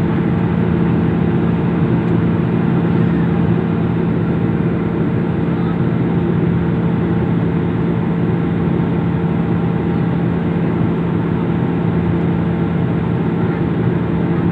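Aeroplane engines running in a steady, unbroken drone with a low hum.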